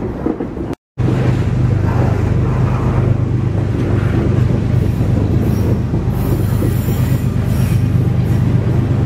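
Loaded coal hopper cars of a freight train rolling past close by, wheels rumbling steadily on the rails over a steady low drone, with a short dropout about a second in. High-pitched wheel squeal comes in about six seconds in.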